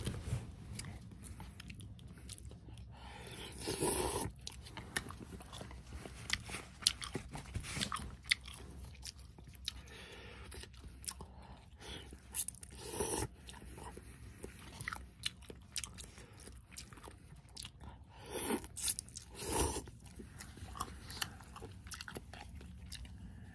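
A person eating instant cup noodles close to the microphone: wet chewing and mouth clicks throughout, with several half-second slurps of noodles and broth.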